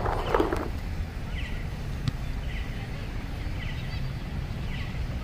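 A bird repeating a short, falling chirp about once every 0.8 seconds, over low wind rumble on the microphone. A brief shout from the field comes right at the start, and a single sharp knock, like a ball being kicked, comes about two seconds in.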